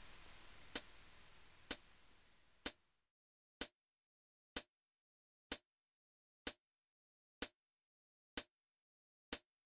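Clock ticking steadily about once a second, ten even ticks. A faint background hiss fades away about three seconds in, leaving the ticks alone.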